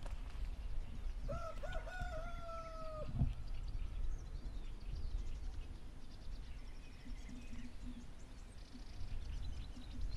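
A rooster crowing once, starting about a second in and lasting nearly two seconds, wavering at first and then held, sagging slightly at the end. A low thump comes just after, and small birds chirp faintly later on.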